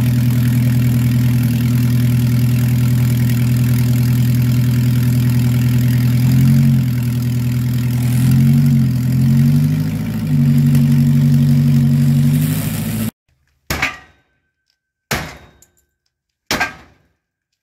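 An engine running steadily, revving up and back down twice near the middle. It stops abruptly about 13 seconds in, followed by three heavy hammer blows on the wrecked derby car's body metal, about a second and a half apart.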